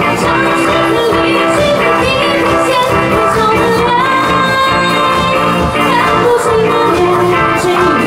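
Amplified live rock band playing: a woman singing lead into a microphone over electric guitar, bass guitar and drums, with a steady beat.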